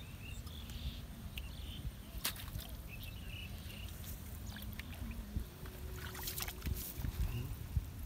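Outdoor ambience at a rice-field pond: a steady low rumble with short faint bird chirps, and a few brief splashes and rustles about two seconds in and again near the end as a small fish is hauled out of the water on a hook line.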